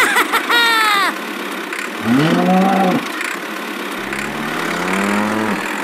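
Cow mooing twice, a first moo about two seconds in and a longer second one about four seconds in, over a steady background hum. A short, high, falling cry comes just before, within the first second.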